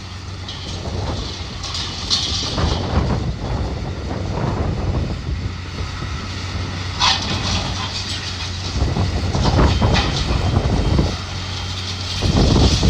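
Diesel engine of a heavy demolition machine running steadily, with irregular crunching and clattering of building debris as it tears material out of the structure.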